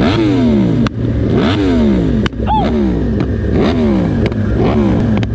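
Inline-four sport bike engine revved in a series of throttle blips, about five, each one climbing quickly and then falling back over most of a second. A few short sharp clicks fall between the revs.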